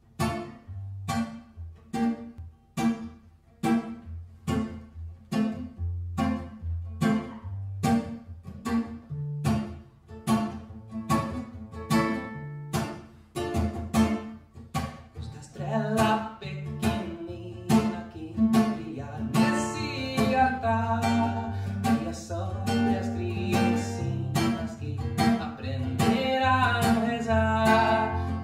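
Acoustic guitar played in steady strokes, about two a second. About two-thirds of the way through, a man's singing voice joins the guitar.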